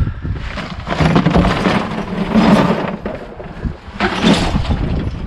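Clattering and scraping of junk being handled in a dumpster, in irregular stretches with the loudest near the middle.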